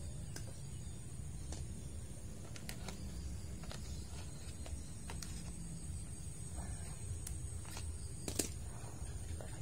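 Scattered light clicks and taps from hands handling orchid canes against a thin wire stake, with one sharper click about eight seconds in. Under them runs a steady low background rumble.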